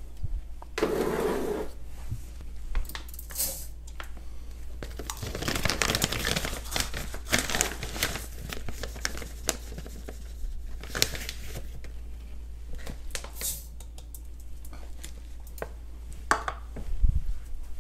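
Rustling and crinkling with scattered light clicks and clatters of kitchen handling. It is busiest from about five to eight seconds in.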